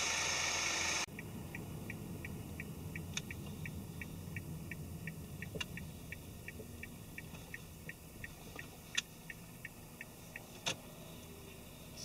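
A car's turn-signal indicator ticking evenly, about three ticks a second, inside the cabin over a low engine and road rumble. The ticking stops about ten seconds in, and a few sharper clicks fall among the ticks.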